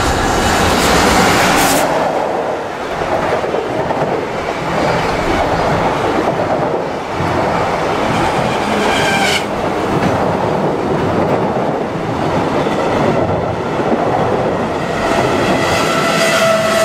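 Freight train hauled by an EF65 electric locomotive passing close by, then a long string of loaded container wagons rolling past with a steady rumble and the clickety-clack of wheels over rail joints.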